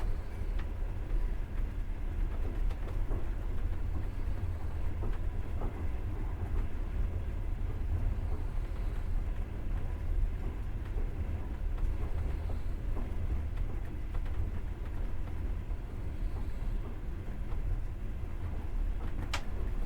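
Long-distance passenger train running, heard from inside a carriage: a steady low rumble of wheels on the track with faint scattered clicks, and one sharp click near the end.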